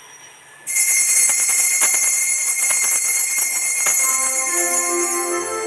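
A cluster of small altar bells rung in a shaking shimmer, starting suddenly about a second in with a few sharper strikes, signalling the start of Mass. Near the end, the keyboard notes of the entrance hymn come in under it.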